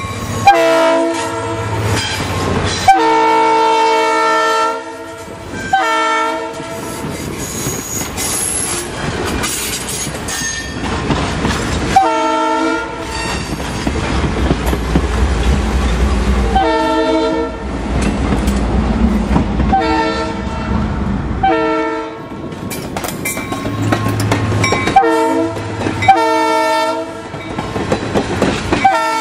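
Diesel locomotive's air horn sounding a series of long and short blasts as the train passes close by. Between the blasts comes the low rumble of the train and the clatter of its wheels over the rail joints.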